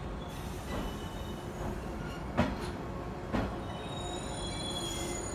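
Red local electric train running slowly along a station platform: steady running rumble with two sharp clacks about a second apart, and a thin high wheel squeal starting near the end.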